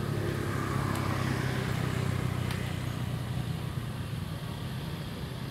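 A motor vehicle's engine hum going past, louder in the first couple of seconds and then fading away.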